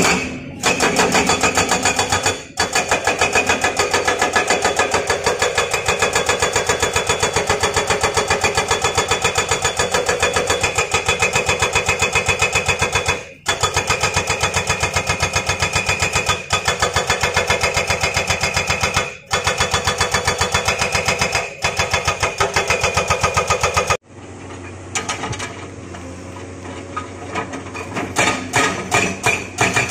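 Hydraulic breaker on an XCMG XE215C excavator hammering rock in rapid, even blows, stopping briefly a few times. Near the end it drops to a quieter running sound for a few seconds before the hammering resumes.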